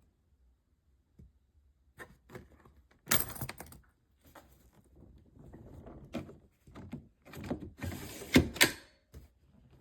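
Handling noise from a hardside ABS suitcase: irregular clicks, knocks and thunks with rustling between them. The loudest knocks come about three seconds in and twice just before the end.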